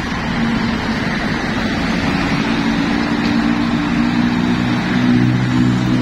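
Diesel engine of an intercity coach pulling away and driving closer, a steady low drone that grows a little stronger in the second half, over road traffic noise.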